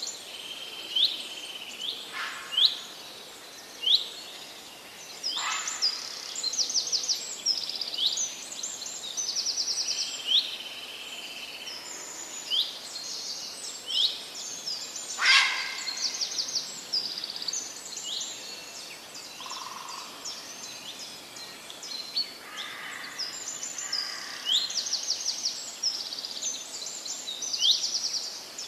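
Several songbirds singing and calling together: a continuous stream of short high chirps and quick trills, with a few sharper, louder calls standing out, over a light steady hiss.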